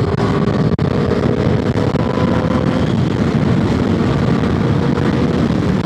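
Motorcycle riding at a steady cruise: the engine runs evenly beneath heavy wind rush on the microphone.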